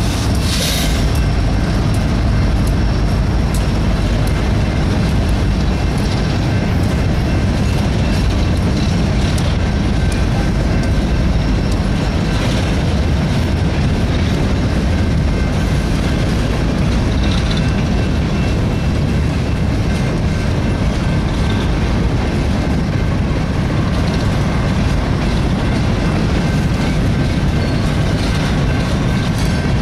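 Empty coal hopper cars of a freight train rolling past close by: a steady low rumble with the clatter of wheels over the rail joints.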